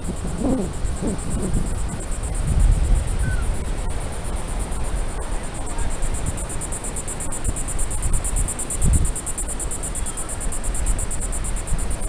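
Wind rumbling on the microphone over the wash of ocean surf, rising and falling in gusts, with a high, evenly pulsing buzz above it.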